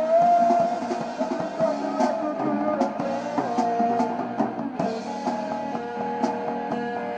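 Rock band jamming: an electric guitar holds and bends notes over a drum kit, then moves into a steadier repeated figure about five seconds in.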